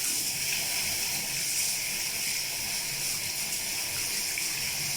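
Water tap turned on suddenly and running steadily into a sink, with slime-sticky hands being washed under the stream.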